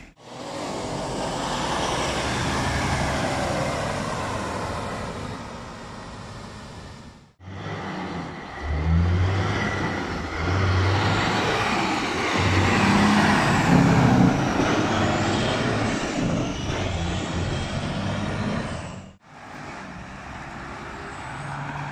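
Semi-truck diesel engine pulling through an intersection, its low note stepping up and rising as it accelerates, loudest about two thirds of the way in. Other street traffic noise comes before and after, and the sound cuts off abruptly twice.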